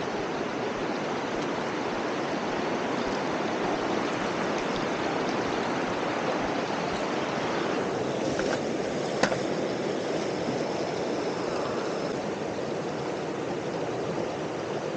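Steady rushing of a waterfall and its fast-flowing stream, with one sharp click about nine seconds in.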